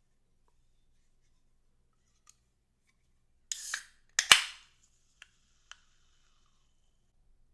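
A brief rustle, then a loud sharp pop with a faint ringing tail, followed by two small clicks.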